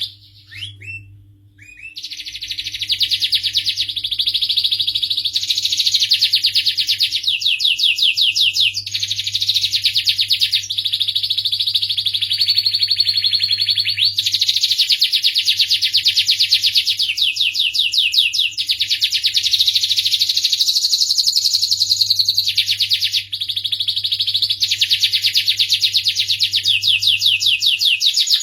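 Domestic canary singing a long, continuous song of fast, rolling trills and chirps, one phrase running into the next, with a short pause about a second in.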